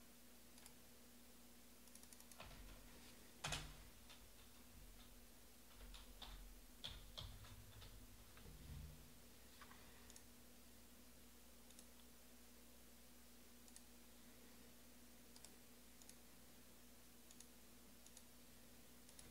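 Near silence: faint room tone with a steady low hum, broken by scattered light clicks and taps of trading cards being handled on a table. The sharpest click comes about three and a half seconds in, and a cluster follows a few seconds later.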